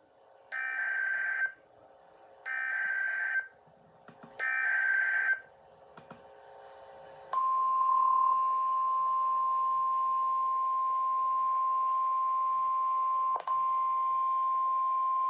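Emergency Alert System activation: three one-second bursts of SAME digital header data, about a second apart, then the 1050 Hz weather-radio attention tone, one steady high tone starting about seven seconds in with a brief blip near the end, signalling an incoming National Weather Service warning.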